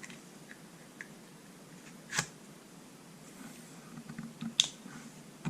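Small plastic items and packaging being handled on a workbench: a few isolated clicks and light rustles, the sharpest a little before the end.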